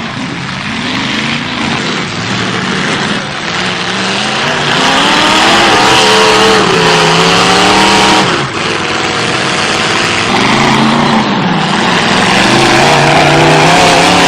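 Demolition derby car engines revving hard, pitch rising and falling over and over, getting louder about a third of the way in.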